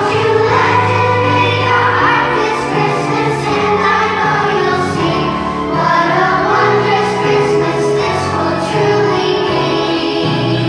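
Children's choir singing a Christian worship song over instrumental accompaniment.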